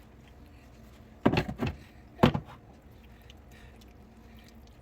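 Oven door clunks: a short cluster of knocks, then one sharp bang about a second later.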